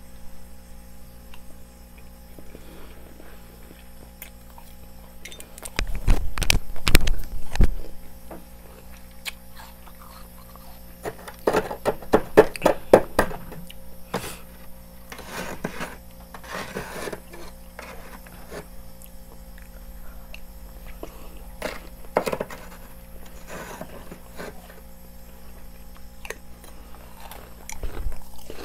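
Freezer frost crunched and chewed in the mouth in several bouts of dense crackling crunches, the loudest with heavy thuds a few seconds in and a fast run of crunches near the middle. Between bouts a metal spoon scrapes frost from the freezer wall.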